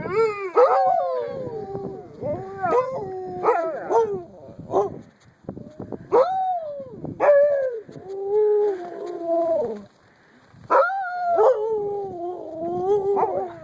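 A dog howling and whining in a long run of drawn-out, wavering calls, some sliding up and down in pitch, with a short pause about ten seconds in.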